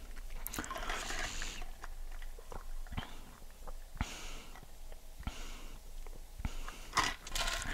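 Close-miked sipping through a drinking straw: a few short sucking hisses, with wet mouth clicks and swallows between them. A louder burst of mouth noise comes near the end.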